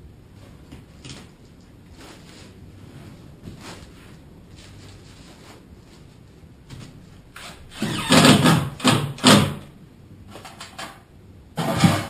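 Rigid foam insulation board being handled and pushed into place. After a quiet stretch with a few soft knocks, there are loud rubbing and scraping bursts about eight seconds in and again at the very end.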